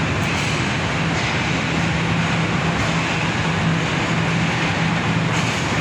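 Pakistan Railways Khyber Mail Express passenger coaches rolling slowly out of the station. A steady rumble of wheels on rails runs under a constant low hum.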